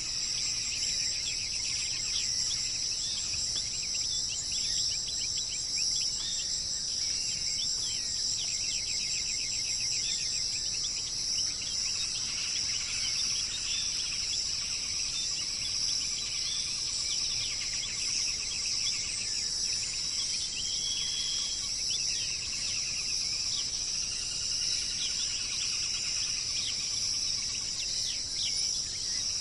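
A steady, high-pitched insect chorus drones without a break, with many quick bird chirps and short trills over it.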